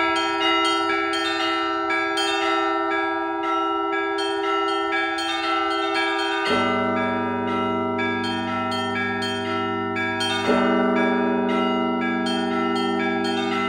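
Russian Orthodox trezvon on a church belfry: small treble bells struck in a quick, rapid rhythm over the steady ringing of middle bells. The large bass bell sounds twice, about six and a half and ten and a half seconds in.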